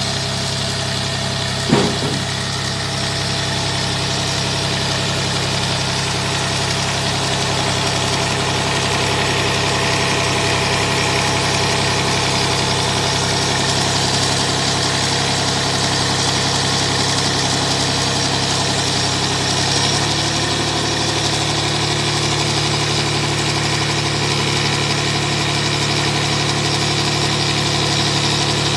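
Small 18 HP tractor engine running steadily, turning a generator armature on a stand through its PTO shaft and belt pulley. A single sharp knock comes about two seconds in, and the engine note changes slightly about twenty seconds in.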